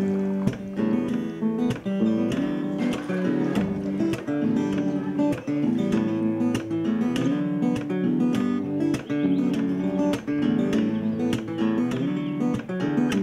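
Background music led by a plucked and strummed acoustic guitar.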